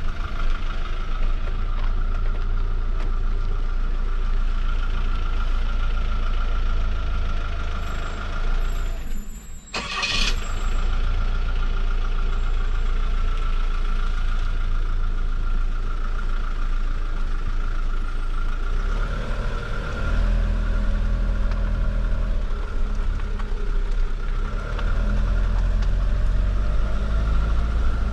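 Fiat Ducato-based motorhome driving at road speed, its engine and tyre noise running steadily. About ten seconds in the noise drops briefly with a sharp click, and from about twenty seconds in the low rumble grows a little heavier.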